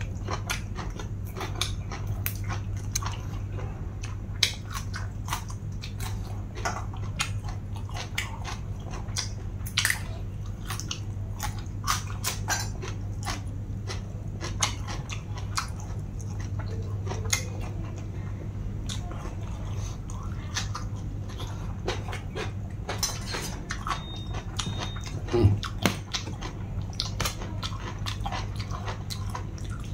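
Close-up mouth sounds of someone biting and chewing crisp food, a pounded long-bean salad with raw greens: many short, sharp crunches and smacks in an uneven rhythm, over a steady low hum.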